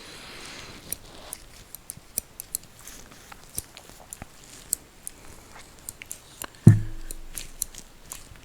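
Scattered small clicks and snips from scissors and handled objects. One louder knock with a brief low ring comes just under seven seconds in.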